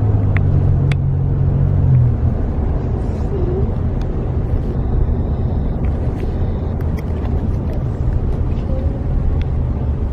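Car engine and tyre rumble heard from inside the cabin while driving, with a steady low engine hum for the first two seconds that then gives way to low road rumble and a few light clicks.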